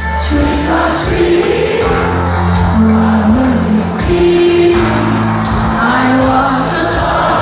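Live band music at a concert: a woman singing held notes that step up and down over the band's drums and heavy bass, loud through a phone's microphone in the crowd.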